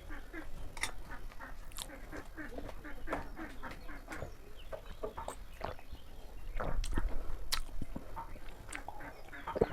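Close-up eating sounds of a person eating chicken curry with chicken feet and gizzards: irregular wet chewing, lip-smacking and sucking clicks, louder for a stretch past the middle.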